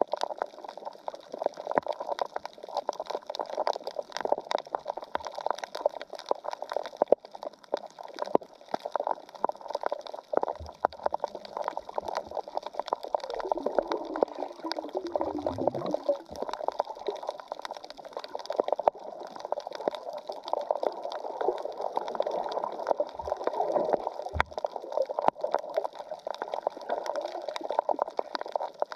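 Underwater sound from a camera just below the surface over a shallow coral reef: a steady crackling, bubbling water noise made of many fine clicks. About halfway through, a low sound falls in pitch.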